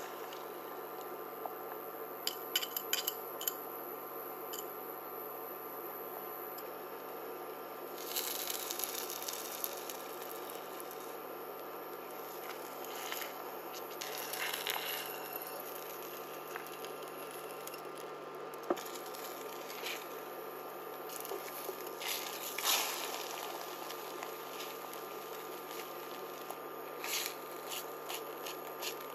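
A spatula working beaten eggs in a ceramic-coated pan as an omelet sets: scattered light clicks and taps with a few short scraping, sizzling rushes, over a steady hum.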